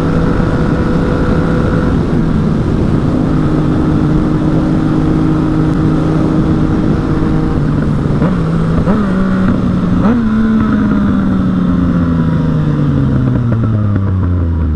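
Yamaha MT-09 inline-three motorcycle engine running loud while riding. It holds a steady pitch, jumps up sharply twice about nine and ten seconds in, then winds steadily down as the bike slows.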